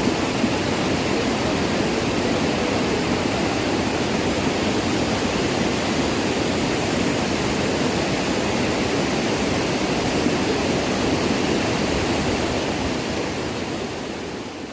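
Waterfall's rushing water, a steady loud roar of falling water with no break, fading out near the end.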